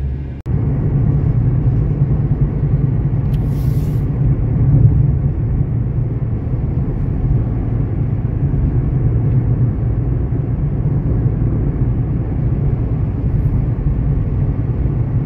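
Steady low rumble of a car driving, engine and tyre noise heard from inside the cabin. It breaks off for an instant about half a second in, and a short hiss comes in around three and a half seconds.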